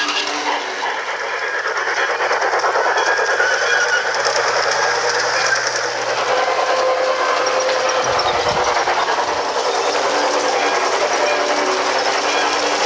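Steam train sound: a steady, dense hiss of steam.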